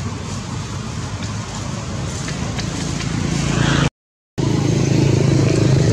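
A motor vehicle engine running nearby, growing louder, then a brief gap of silence about four seconds in, after which a steady low engine hum continues.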